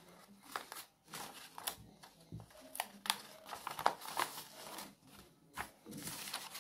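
Irregular rustling, crinkling and sharp clicks of paper pattern pieces being handled on a worktable.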